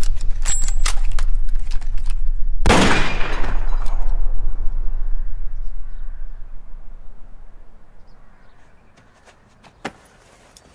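A low, dark rumble with a few sharp clicks, then one loud bang about three seconds in whose echoing tail dies away over a second or so. The rumble then fades out, leaving only a lone click near the end.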